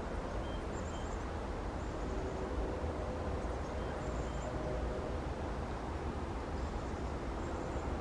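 Outdoor ambience: a steady low rumble, with faint, short, high chirps of small birds several times.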